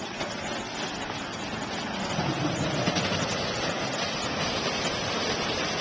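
Truck engine idling, a steady low running noise that grows slightly louder.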